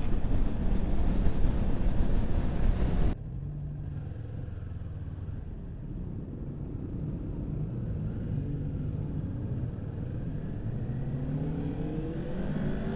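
Motorcycle riding in traffic: loud rushing wind noise cuts off abruptly about three seconds in, leaving the engine's steady low hum. Near the end the engine pitch rises as the bike accelerates. The engine is one still being broken in.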